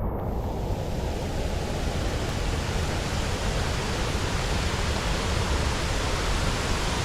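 Waterfall: a steady rush of falling water, with the hiss in the upper range filling in about half a second in.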